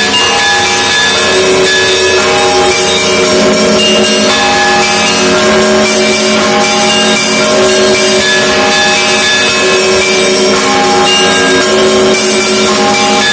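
Russian Orthodox monastery bells pealing: many bells of different pitches struck in quick succession, their long ringing tones overlapping in a dense, continuous peal.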